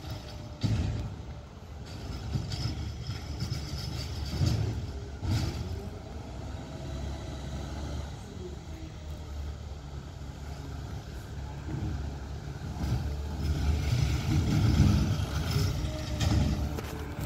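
Peterbilt 520 McNeilus ZR garbage truck's diesel engine running, with a steady low rumble that grows louder near the end as the truck comes closer.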